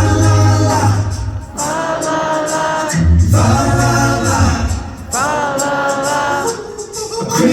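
Group of voices singing a Christmas song in close harmony, in four held phrases of a second or two each, with a low bass line under the first and third.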